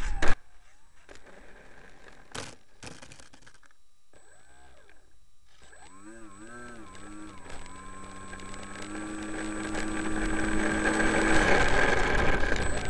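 A sharp knock just after the start, then a few clicks; from about six seconds the whine of a small RC plane's electric motor wavers up and down in pitch, then holds steady for a few seconds, while wind noise on the microphone builds.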